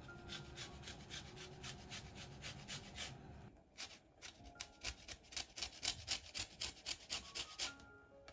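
Lemon peel scraped over a fine rasp grater in quick, regular strokes, about three to four a second: zesting a lemon.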